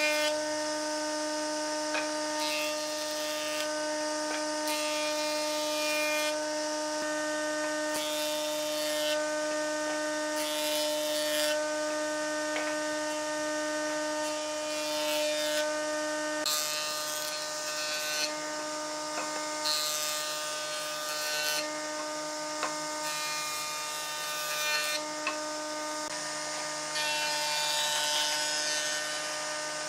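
An electric power tool's motor running steadily while it works wood. A rasping, cutting noise rises and falls in passes every second or two, and the motor's tone drops out now and then in the second half.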